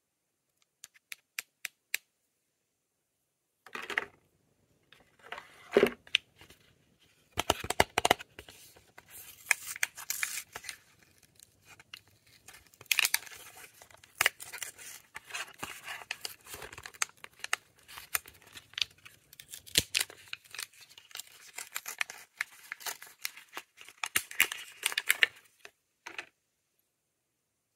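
Lip balm packaging being unwrapped by hand: tearing and crinkling of the wrapping mixed with sharp little clicks. A few light ticks come first, and the unwrapping runs from about four seconds in until shortly before the end.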